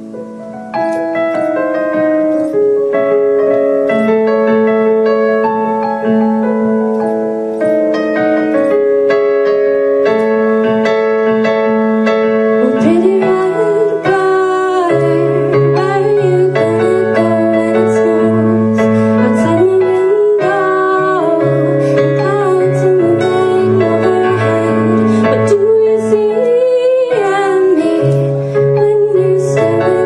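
Electronic keyboard playing slow, held chords that change every second or two. A woman's singing voice comes in about halfway through and carries a melody over the chords.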